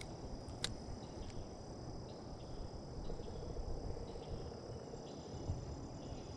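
Steady high-pitched insect trilling, like crickets, over a low rumble, with a faint short trill about halfway through.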